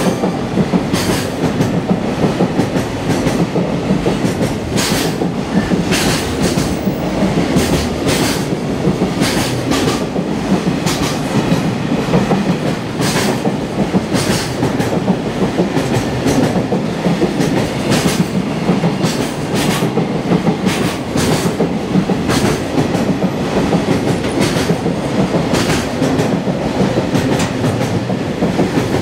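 Long container freight train passing close by at speed: a steady rumble of wagons with repeated sharp clicks of wheel clatter on the rails throughout.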